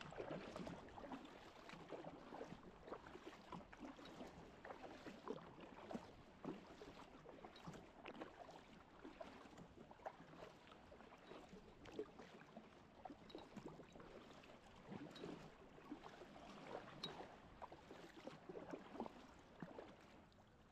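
Faint kayak paddling: the paddle blades dipping and splashing in calm water, with water trickling along the hull.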